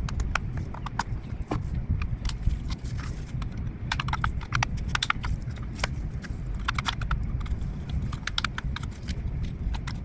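Irregular small clicks and taps of plastic clips and parts being worked loose by hand as the steering angle sensor is unclipped from the steering column, over a steady low rumble.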